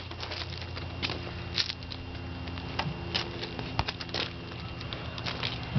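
Irregular small crunches and clicks of loose gravel being disturbed as a Holland lop rabbit scampers around a soccer ball, over a low steady hum.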